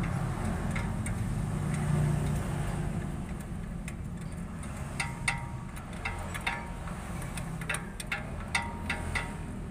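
Wrench working a bolt on the exhaust manifold bracket from under the car: irregular sharp metallic clicks and clinks from about halfway through, over a low steady rumble.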